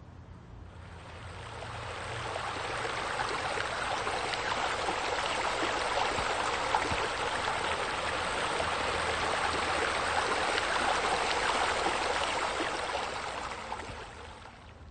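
Water from a small rock waterfall splashing steadily into a pool. It fades in over the first two seconds and fades out near the end.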